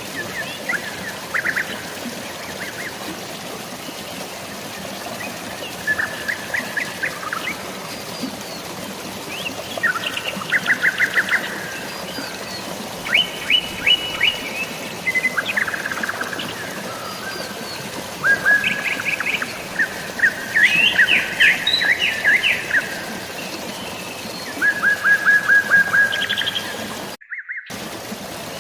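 Songbirds chirping and trilling in short bursts of rapid repeated notes over a steady hiss of rain and flowing water. The sound cuts out for a split second near the end.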